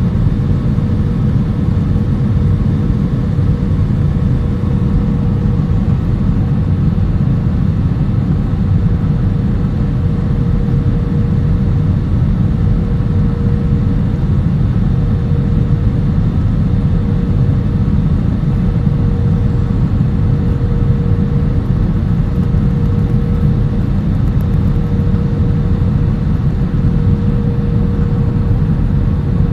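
Airliner cabin noise in flight: the steady low rush of the jet engines and airflow over the fuselage, with a faint steady hum above it.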